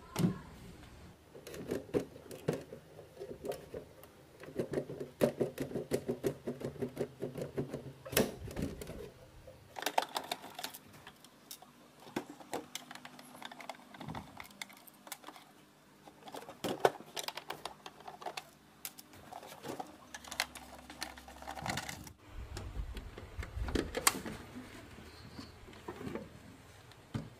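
Irregular clicks and clacks of small hard parts being handled on an old cassette player under repair, with a faint steady hum through the middle stretch.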